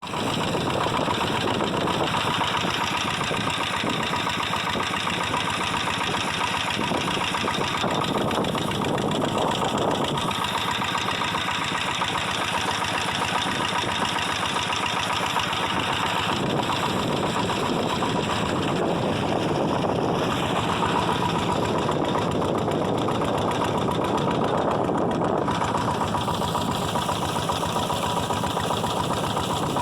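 An engine running steadily at a constant speed, with a fast even chugging and a steady hum.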